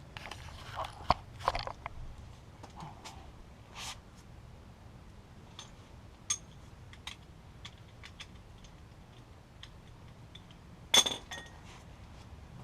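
Metal hand tools clinking and tapping against steel brake parts, scattered light clicks with one sharp, ringing metal clank about eleven seconds in.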